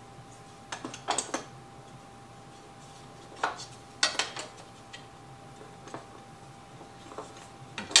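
Clicks and taps of a Milescraft HingeMate300 hinge-mortising jig being handled: a template slotted into the jig and the jig set and shifted against a pine board. Short sharp clicks come in small clusters about a second in, around three and four seconds, and again near the end.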